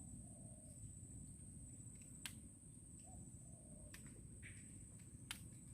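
Near silence: faint outdoor background with a steady high thin whine, soft short chirps about every three seconds, and two sharp clicks, about two and five seconds in.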